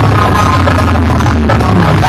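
Loud electronic dance music playing through a towering DJ stack of loudspeaker boxes, with a heavy, steady bass.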